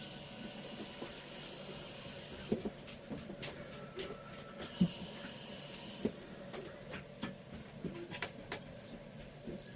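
Kitchen tap running into a sink as a steady rush of water, with scattered knocks and clatter of things being handled in it.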